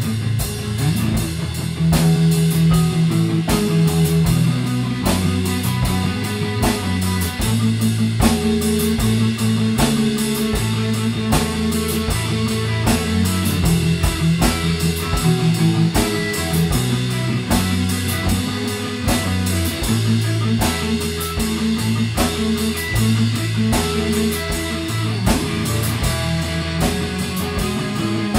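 Band music: guitars over a drum kit keeping a steady beat.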